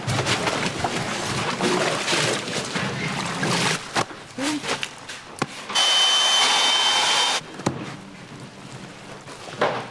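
Gloved hands working napa cabbage for kimchi, the leaves rustling and crunching with small knocks of handling. Around six seconds in comes a loud, steady hiss with a thin whistle in it, lasting about a second and a half.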